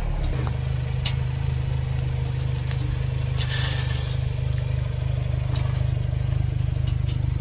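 Car engine running at a crawl, a steady low hum, while items are crushed under the wheel: a few sharp cracks, the loudest at about three and a half seconds with a short splash of liquid as a juice pouch bursts.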